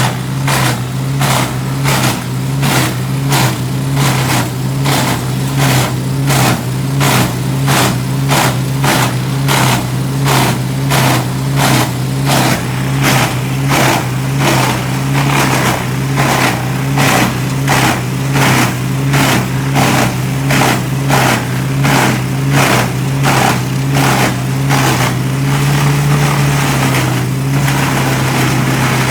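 Large wood chipper running under a steady engine drone, with a regular pulsing beat about two to three times a second as it works. Near the end the beat gives way to a steadier rush.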